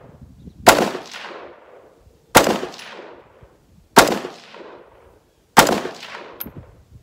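Short-barrelled AR-15 with a 10.5-inch 5.56 upper firing four single shots about a second and a half apart. Each is a sharp crack followed by an echo that dies away.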